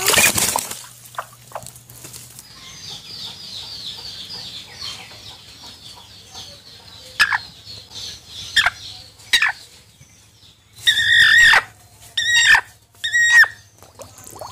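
Hen flapping her wings in a tub of water with a splash at the start, then calling in distress while held and bathed: scattered sharp calls, and three loud squawks near the end.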